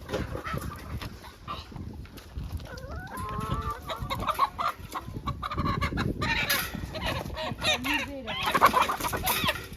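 Chickens clucking and squawking in short, sharp calls, with loud bursts of scuffling noise about two-thirds of the way in and again near the end.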